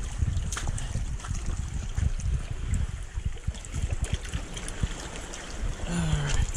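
Small waves sloshing and trickling among rocks at the water's edge, in an uneven wash that rises and falls.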